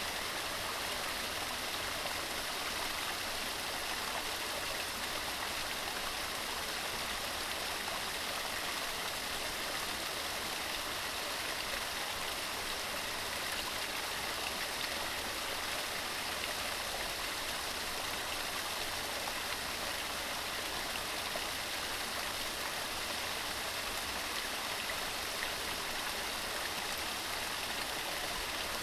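Mountain stream running steadily over rocks, a continuous even rush of water.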